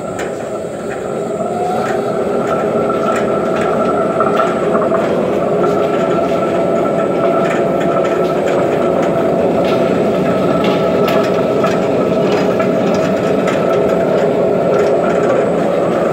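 Electra 100 stone melangeur grinding cocoa nut butter, its motor and drum running at maximum speed. It comes up to speed over the first couple of seconds, then holds a steady hum with light irregular clicks.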